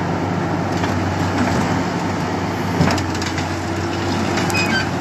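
DR-220 rotary drilling rig's diesel engine running steadily with a low hum and crackling rattle. About three seconds in, a knock is followed by a steady higher tone.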